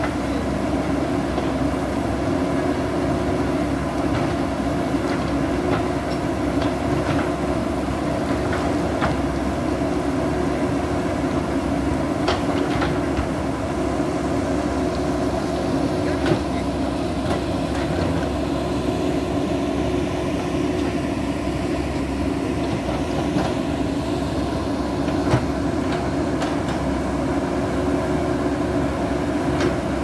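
JCB backhoe loader's diesel engine running steadily under load while it digs, with a few sharp knocks now and then.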